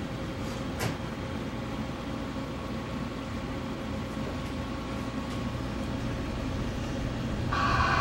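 Steady running noise heard from inside a moving cable-driven people-mover tram, with a faint hum and a single sharp click about a second in. Near the end, music starts suddenly and gets louder.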